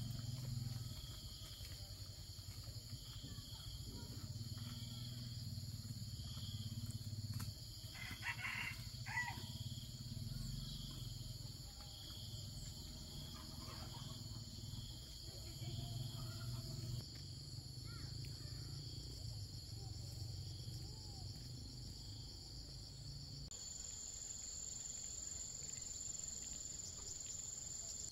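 Insects droning in steady, even high tones, one of them pulsing about once a second, over a low, uneven rumble. A few short clicks come about eight to nine seconds in.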